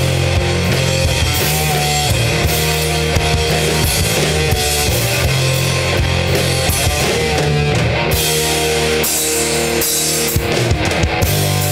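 Rock band playing live in a grunge style: electric guitar, bass guitar and a drum kit, loud and steady throughout.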